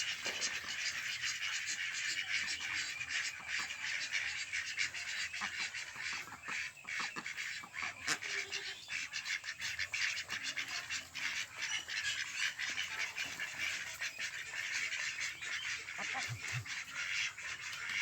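A large flock of ducks calling all at once: a dense, unbroken chatter of many overlapping calls.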